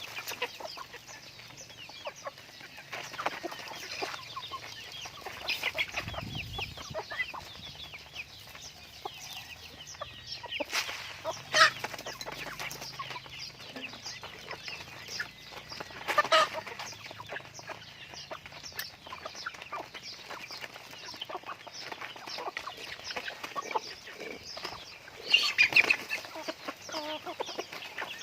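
Chickens clucking and chirping continuously, with a few louder calls about 11, 16 and 25 seconds in.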